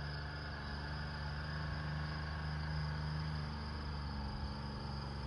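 Off-road vehicle's engine running low and steady as it creeps down a steep dirt track in low gear, a hum with a slight wavering about four seconds in.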